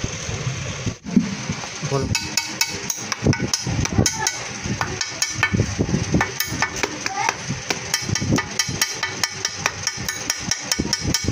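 Quick, irregular small metal clicks and taps of steel bolts and a spanner being handled and set through the holes of a cardboard gasket on a steel cover plate.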